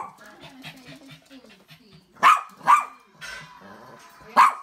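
Dog barking: two quick barks about two seconds in and a third near the end.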